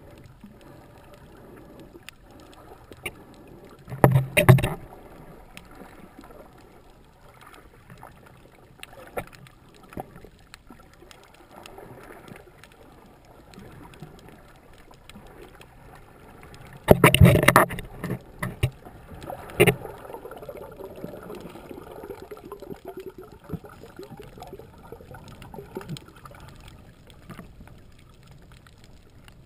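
Underwater sound recorded through a handheld camera's housing: a steady low wash of water, broken by loud rushing bursts about four seconds in and again around seventeen to twenty seconds in.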